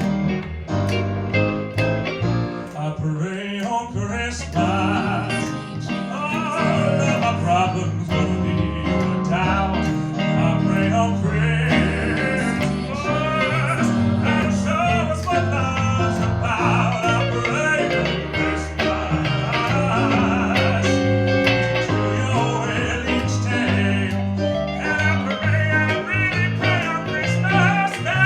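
A band playing a country-blues style song: guitar and bass over a steady drum beat, with a wavering lead melody line on top.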